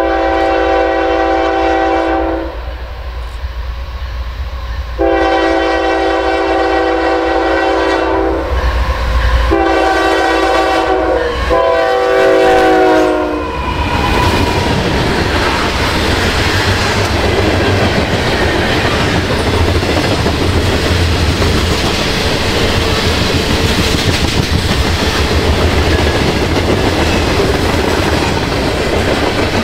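Train horn on a passing locomotive, a chord of several tones, sounds four blasts: two long ones, then two shorter ones close together, the last dropping in pitch as the locomotive goes past. Then the train's cars roll by with a steady clatter of wheels on rail and a low rumble.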